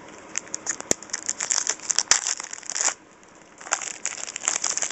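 Plastic wrapper of a trading card pack crinkling and crackling as it is handled, in two stretches with a short pause near the middle, with a few sharp clicks.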